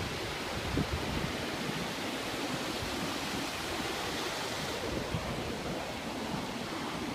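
Steady wash of ocean surf breaking along the beach.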